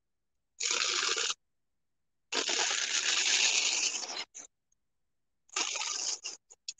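Thin paper napkin crinkling as its printed top ply is peeled away from the backing ply, in three bursts, the middle one the longest.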